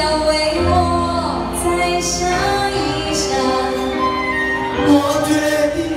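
A woman singing into a handheld microphone over a recorded instrumental backing track, amplified through a PA system.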